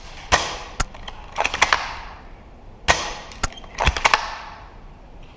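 Shots from an SSG-24 airsoft sniper rifle: three sharp cracks about two and a half seconds apart, each with a lingering tail. Each crack is followed about half a second later by a short click, with smaller clacks in between.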